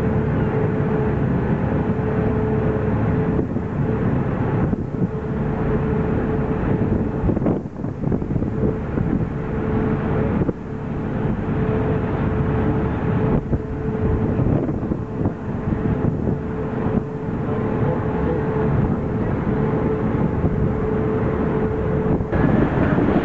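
Car ferry's engines running with a steady hum under a constant noisy rumble, with wind buffeting the microphone. The sound dips briefly a few times.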